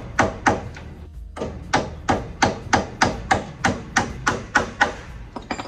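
Hammer blows driving staples through wire mesh into a wooden frame: three quick strikes, a short pause, then about a dozen steady strikes at roughly three a second.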